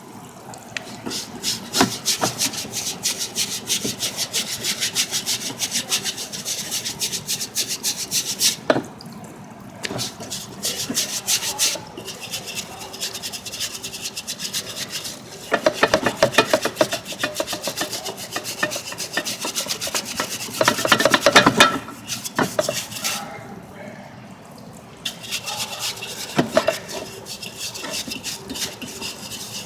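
A stiff brush scrubbing oily sludge off diesel engine surfaces in rapid back-and-forth strokes, in several spells with brief pauses; the strokes are hardest in the middle stretch.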